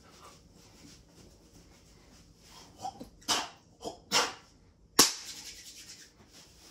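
Open-hand slaps on a person's back during a massage. Four quicker, softer strikes come between about three and four and a half seconds in, then one sharp, loudest slap about five seconds in.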